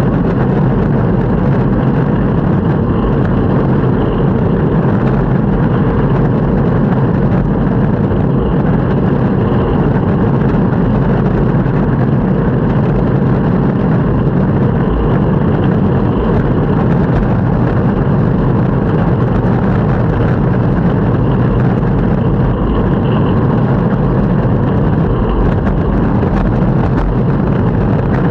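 Longboard wheels rolling steadily over city pavement, a continuous low rumble with no breaks.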